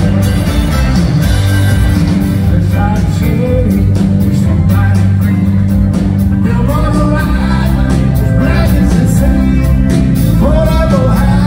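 Live rock band playing loudly, with drums, bass, electric guitar and keyboards, and a male lead vocalist singing over them, the voice coming in about three seconds in.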